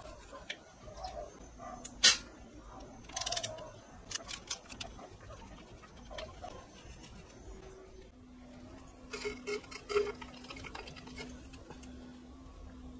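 Scattered metallic clinks and clicks of hand tools and motorcycle engine parts being handled. One sharp clink comes about two seconds in, with quick runs of clicks around three seconds and again near ten seconds.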